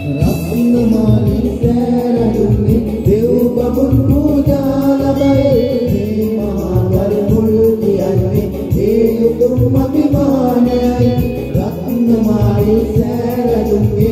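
Group of men and women singing a Sinhala Buddhist devotional song (bhakti gee) together into microphones, over instrumental backing with a steady beat.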